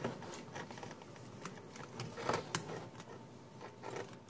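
Small clicks and handling knocks of a cable connector being fitted into a mechanical keyboard, with a couple of sharper clicks a little past halfway.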